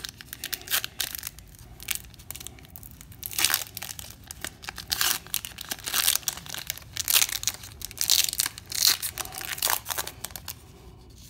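Silver foil trading-card pack torn open and crinkled by hand: irregular crackling and ripping, with louder rips about three, five and eight seconds in.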